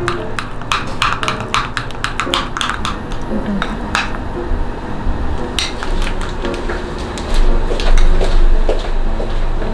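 Small metal spoon stirring a thick carob-and-milk paste in a small glass bowl, clicking and scraping against the glass in quick strokes. About seven seconds in, a louder low rumble takes over as the paste is spooned into a plastic piping bag.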